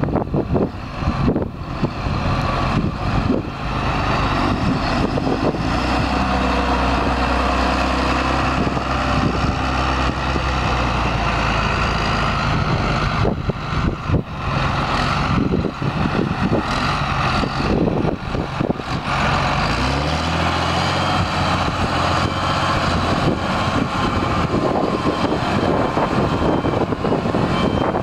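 John Deere 8120 tractor's six-cylinder diesel engine running steadily as the tractor drives around, its engine speed dipping and picking back up about two-thirds of the way through.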